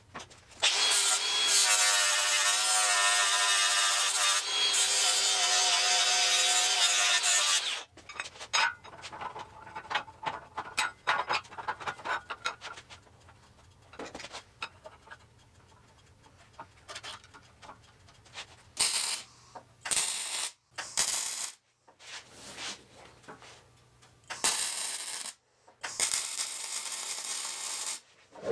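An angle grinder runs for about the first eight seconds, its whine wavering under load. Then come light clinks and knocks of steel parts being fitted together. From about two-thirds of the way in, an arc welder sounds in several short bursts and then a longer run near the end.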